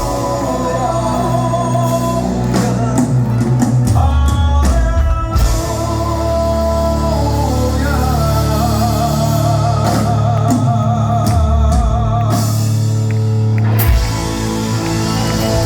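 Live rock band playing, with singing: a run of drum strokes about three seconds in, then a long held note that wavers.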